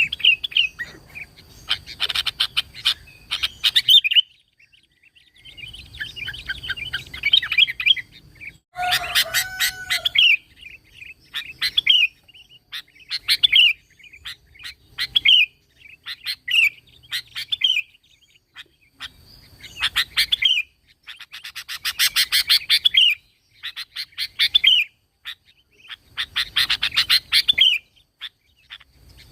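Sooty-headed bulbul (kutilang) singing: short bubbling, chattering phrases repeated every second or two with brief pauses between them.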